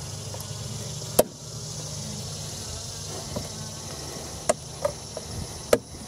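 Honeybees buzzing steadily in an open hive, with a sharp click about a second in and a few more near the end as the frame feeder is pushed back into the wooden hive body.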